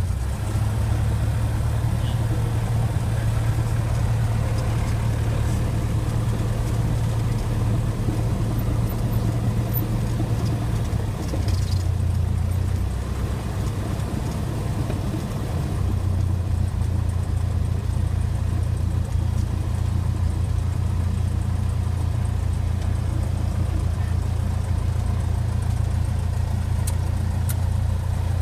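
Cessna 172SP's four-cylinder Lycoming engine and propeller running at low taxi power, heard from inside the cabin as a steady low drone. Its pitch dips slightly for a few seconds midway, then comes back up.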